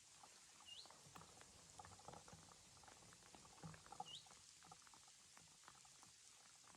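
Near silence: faint, irregular crackles and ticks over a soft hiss, with two short high chirps rising in pitch, one about a second in and another about four seconds in.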